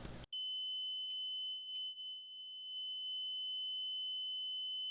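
Servis smoke alarm's horn sounding one continuous, steady high tone, which begins a moment in and dips briefly about two seconds in. It sounds continuously rather than in pulses, which the owner puts down to the test button being held down.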